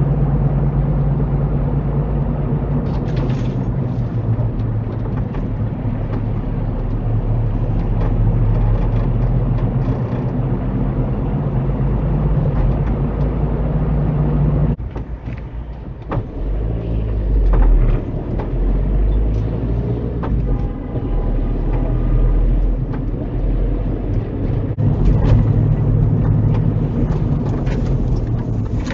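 Car interior driving noise as picked up by a windscreen dash cam: steady engine hum and road rumble. The noise drops for a few seconds about halfway through, then comes back at a lower road speed.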